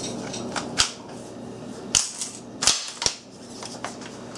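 Sharp metallic clicks and clacks of a Browning Silver Hunter 20-gauge shotgun's parts being fitted together by hand during reassembly. There are about four distinct clicks, the loudest two about two seconds in, with a few fainter taps between them.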